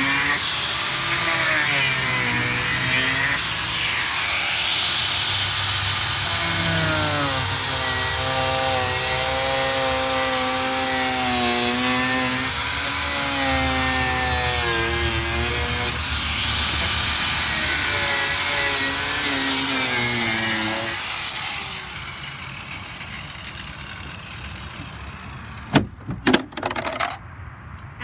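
Cordless angle grinder with a cut-off disc cutting through fiberglass bus siding, its motor pitch dipping and rising as the disc bites. About three-quarters of the way through it stops and winds down. A few sharp knocks follow near the end.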